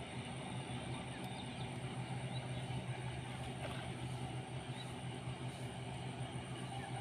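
A steady low motor hum with a thin, constant high-pitched whine above it, and a few faint short chirps.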